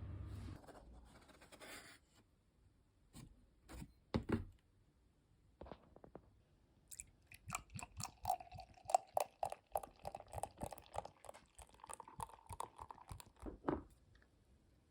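Close-up crunchy chewing: a few separate crunches, then a quick run of crunches for several seconds.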